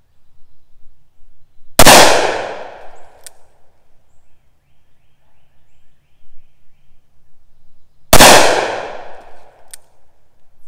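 Two shots from a 2½-inch Smith & Wesson Combat Magnum (Model 19) .357 Magnum revolver firing full-power 158-grain loads, about six seconds apart. Each is a loud crack that rings out over about a second, followed by a faint click about a second and a half later.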